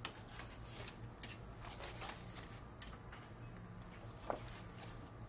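Coloured card pages of a handmade pop-up book being opened and turned by hand: faint rustles and scrapes of stiff paper, with one sharper tap about four seconds in.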